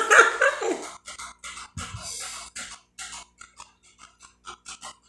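A woman laughing for about the first second, then a string of short, soft clicks and gulps as she drinks water from a glass.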